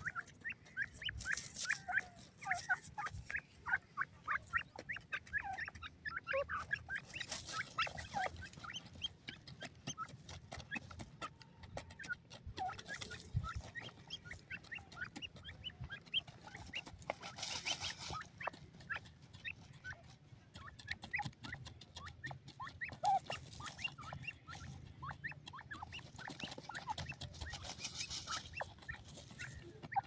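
A small group of grey francolins calling softly, a dense run of short, high chirps in quick succession. About four times there is a brief burst of rustling as the birds scratch and dust-bathe in dry soil.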